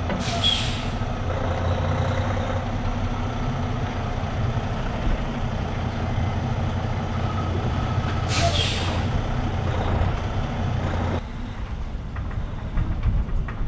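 Diesel semi truck running steadily, with two short hisses of released air from its air brake system, one at the start and one about eight seconds in. The engine sound drops away about eleven seconds in.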